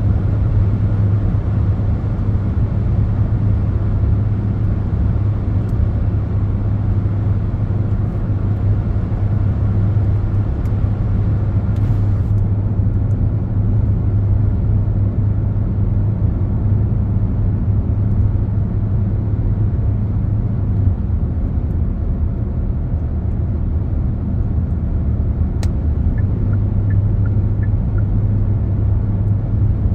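Car travelling along a highway: a steady low rumble of engine and road noise, with no change in pace.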